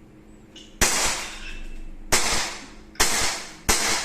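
Airsoft toy gun fired four times in quick, uneven succession, each shot a sharp crack that trails off over about half a second.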